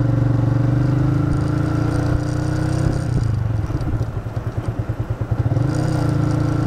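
Yamaha FZ150i's single-cylinder four-stroke engine running as the motorcycle is ridden. The engine note drops about three seconds in to a slower pulsing beat, then picks up again to a steady note near the end.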